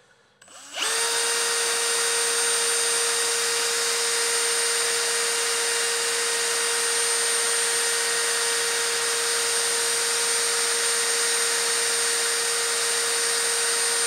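Electric drill starting up about a second in and then running at a steady high speed with a whine. It is spinning a titanium intake valve whose stem is being polished with worn emery cloth.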